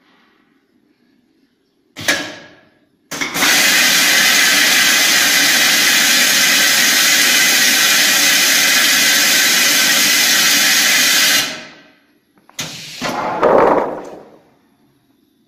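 Pneumatic garlic peeling machine blasting compressed air through its peeling chamber. A short puff comes about two seconds in, then a loud steady hiss lasts about eight seconds and cuts off sharply, and a shorter, rougher burst follows near the end.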